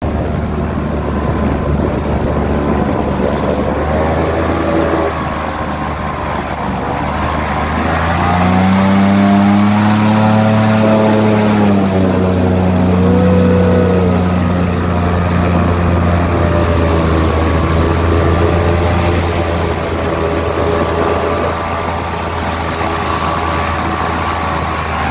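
Airboat engine and propeller running steadily under way, revving up about eight seconds in and easing back a few seconds later.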